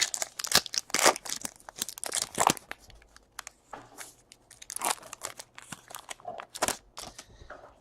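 Trading card pack wrappers crinkling and tearing open, with cards being handled: an irregular run of crisp rustles and snaps.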